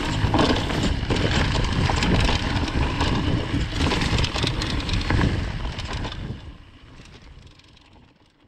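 Mountain bike riding over a trail: a rough rumble and rattle. It fades away over the last three seconds.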